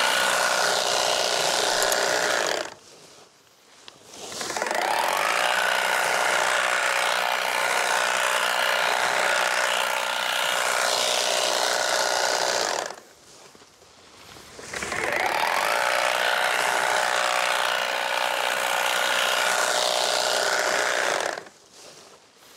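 Battery-powered electric tea harvesting machine running as it shears tea shoots, in three long spells with short stops between them.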